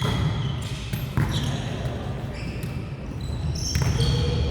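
Basketballs bouncing on a gym floor, with a few sharp thuds: about a second in and again near the end.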